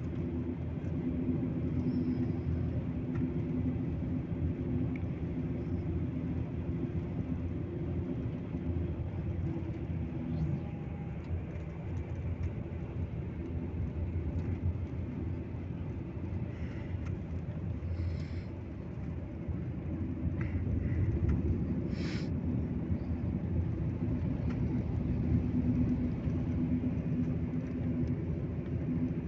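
Coach bus engine and road noise heard from inside the passenger cabin while cruising: a steady low drone whose engine note is stronger near the start and again near the end, with a few faint clicks or rattles past the middle.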